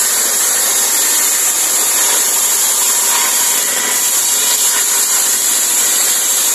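Large circular saw blade on an engine-driven saw bench cutting through a tree branch, with a steady, loud high-pitched cutting noise over the running engine.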